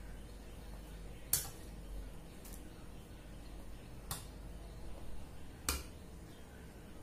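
Metal spoon clinking against small steel and disposable bowls as food is scooped and served: four separate sharp clicks about a second and a half apart, the first the loudest.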